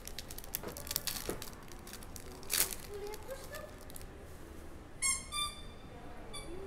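Foil trading-card pack wrapper crinkling and tearing as it is pulled open, with a sharper rip about two and a half seconds in, then cards being handled. About five seconds in there are two short, high-pitched tones.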